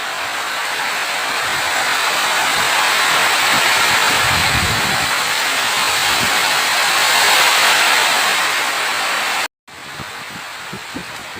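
Steady rain falling, a dense even hiss. About nine and a half seconds in it cuts out for an instant and comes back quieter, with a few separate drips.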